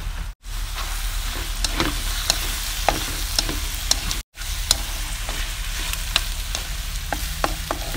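Rat meat sizzling and spitting in a pan of coconut-water braise, with scattered sharp pops: the liquid is cooking off and the meat is browning. The sound breaks off twice for an instant.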